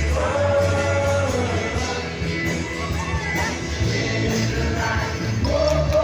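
Music with singing: a sung melody over a steady band accompaniment.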